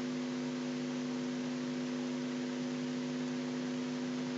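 Steady electrical hum with a hiss: mains hum made of several fixed low tones under an even background hiss, the noise floor of the voice recording.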